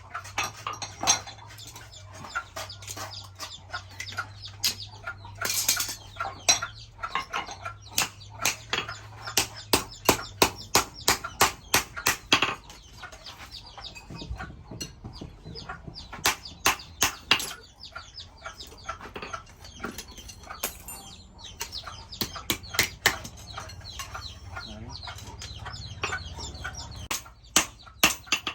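Repeated hammer blows on leaf-spring steel while a chisel is forged, about two to three strikes a second in runs with short pauses, over a low steady hum.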